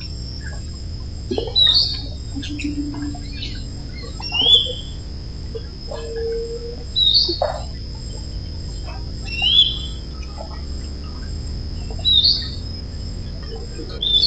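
Tropical forest birds calling: a short rising chirp repeated about every two and a half seconds, with a few lower whistled notes between, over a steady high-pitched insect drone.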